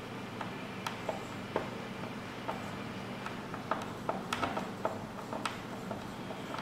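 Irregular light clicks and taps of small fastener parts and hand tools being handled while fitting the lower part of a boat canvas fastener into a wooden board, over a faint steady hum.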